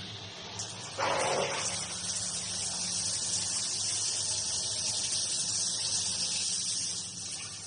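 Water running steadily, turned on about a second in with a brief fuller gush, then a continuous hissing flow.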